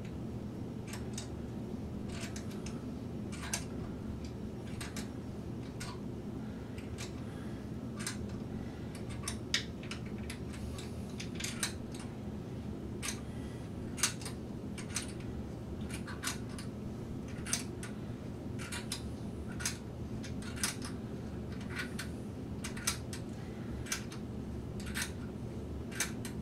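Irregular small clicks and taps of hands handling and fitting parts of a telescope mount, about one or two a second and sometimes in quick pairs, over a steady low hum.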